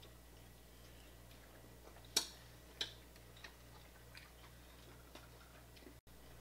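Eating crab legs: a few sharp clicks and cracks of shell being bitten and picked apart, the loudest about two seconds in and another just after, with fainter ticks later.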